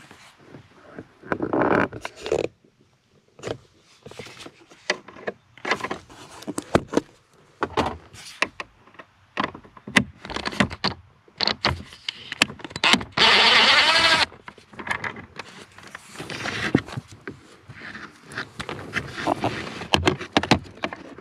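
Screws being backed out of a plastic module on a car's heater case and the module worked loose by hand: irregular clicks, taps and plastic scraping and rattling, with a louder whirring sound of about a second and a half about two-thirds of the way in.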